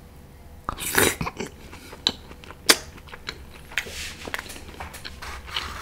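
Close-miked eating sounds: irregular wet chewing and slurping noises with a few sharp clicks, the loudest a burst about a second in and a sharp click a little before the middle.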